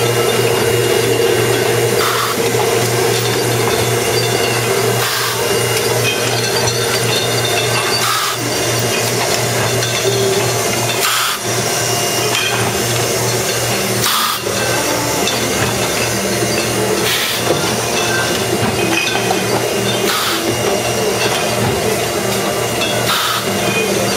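A GAI wine bottling line running: a steady mechanical hum from the filler and capsuling machinery, with a brief rush of noise about every three seconds as the machine cycles.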